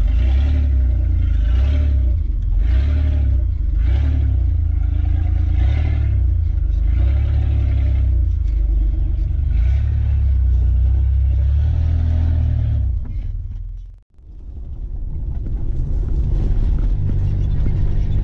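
Steady low rumble of a Mitsubishi Pajero's engine and running gear heard from inside the cabin while driving. The sound fades out briefly about two-thirds of the way through and comes back as a steadier hum.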